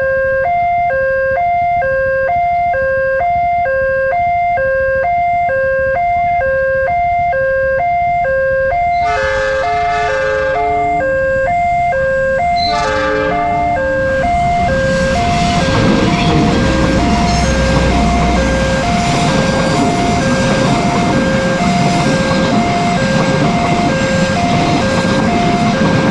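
Railway level-crossing alarm ringing at a fast tempo, two tones alternating. About nine seconds in, a train horn sounds twice. The train then passes with a rising rumble and rail noise while the alarm keeps ringing.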